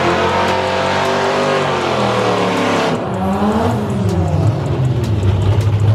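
Performance car engines revving hard, the pitch climbing and dropping in waves, over the hiss of spinning tyres as the cars do a smoky burnout. The tyre hiss stops about three seconds in, and then the revs climb once more.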